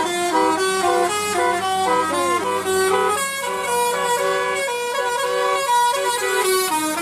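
Bus 'telolet' multi-tone air horn playing a quick melody, its notes stepping to new pitches about three or four times a second, over a steady low engine hum.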